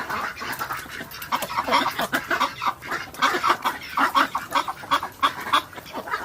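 Poultry calling: many short, quick calls overlapping one another.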